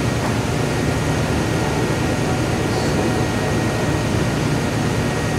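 Grizzly G4003G gearhead metal lathe running steadily with no cut being made, its headstock gears and motor giving a steady hum with a faint high whine, at a lower spindle speed just selected.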